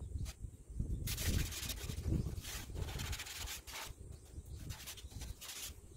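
A cloth rag rubbed across fibre-cement siding in a run of short scraping strokes, from about a second in until nearly four seconds, working white cement over the exposed screw heads to hide them.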